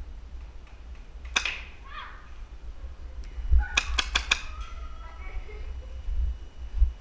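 Airsoft guns firing: a single sharp shot, then about two seconds later a quick string of four shots.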